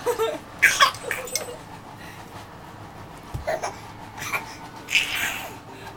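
A dog sneezing and snorting into a blanket: about six short, breathy puffs, the sharpest about a second in and a longer, wheezier one about five seconds in.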